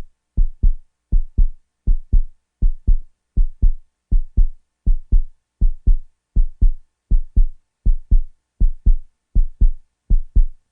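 Heartbeat sound effect: pairs of short, deep thumps (lub-dub) repeating steadily about every three-quarters of a second.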